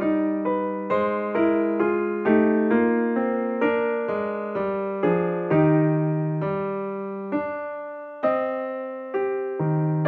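Background music: a gentle keyboard piano melody, its notes struck about two to three a second, each fading after it is struck.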